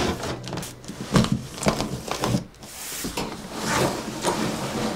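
Cardboard box being opened and a small home greenhouse's wire shelves and black plastic brackets slid out of it: cardboard scraping and rustling, with several clattering knocks of metal and plastic parts.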